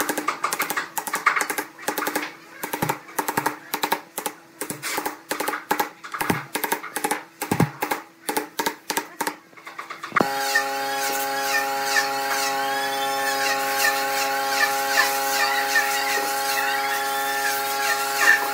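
Hammer blows struck through a wooden block onto the top ring of a round wooden table frame, seating it on the dowels, several strikes a second for about ten seconds. The sound then cuts abruptly to background music with long held chords and chirping glides.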